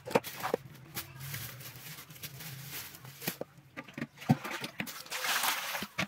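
Scattered sharp knocks and clicks, then about five seconds in a rush of water pouring into a plastic basin.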